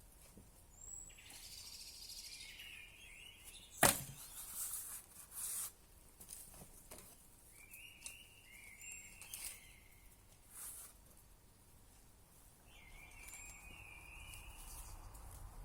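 A bird calling outdoors at night, repeating a short call about every five seconds. A single sharp crack about four seconds in is the loudest sound, followed by brief rustling.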